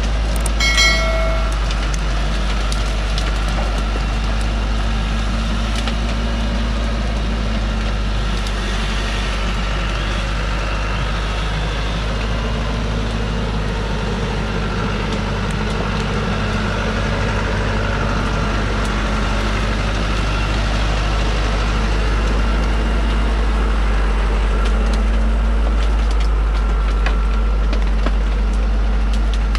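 Diesel engine of a TMT truck loaded with acacia logs running steadily under load as it crawls up a muddy slope. A brief shrill tone sounds about a second in.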